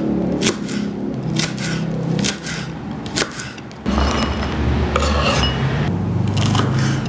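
Kitchen knife chopping spring onion and then red chillies on a wooden cutting board: repeated sharp chops, about two a second. There is a steady low hum underneath.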